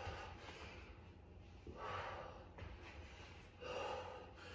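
A man breathing hard from exertion: three heavy breaths about two seconds apart.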